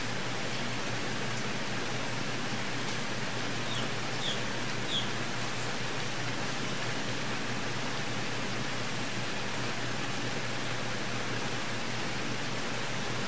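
Steady hiss of background noise with a low hum under it, and a few faint clicks about four to five seconds in.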